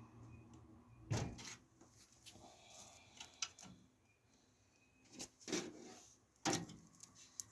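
A handful of separate knocks and clicks, the loudest about a second in, with quiet stretches between.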